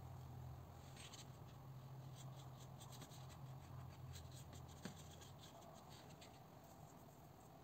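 Faint scratchy strokes of a watercolour brush on textured paper: a run of soft ticks and swishes for several seconds, with one sharper tap about five seconds in, over a low steady hum.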